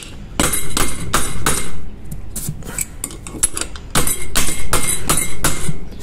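Light hammer taps on a tool set over an electric water-pump motor's shaft, driving a new ball bearing into place. A run of sharp knocks, about three a second, comes in two louder spells with softer taps between them.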